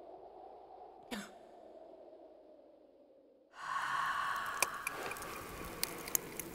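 A faint steady hum with one short breathy puff about a second in. A little past halfway it gives way abruptly to glowing coals crackling: a steady hiss with scattered sharp pops.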